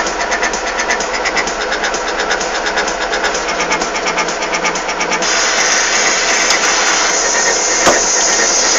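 Backhoe's diesel engine running with a fast, even rattle; about five seconds in the sound gets a little louder and hissier, as the machine works under load, with one sharp knock near the end.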